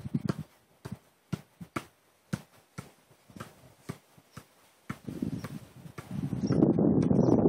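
A football (Adidas Tango 12) being kept up on the feet and knees: dull kicks, one after another at about two a second. From about five seconds in, a louder rushing noise rises and covers the kicks.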